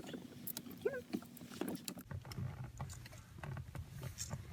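Scattered small clicks and knocks of plastic wiring connectors being handled and slid through a steering wheel, with a brief squeak about a second in and a low hum coming in about halfway through.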